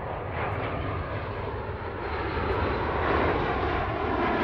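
A pair of Eurofighter Typhoon jets, each with two EJ200 turbofans, flying past: a rushing jet noise that grows steadily louder as they approach, with a whine sliding down in pitch in the second half.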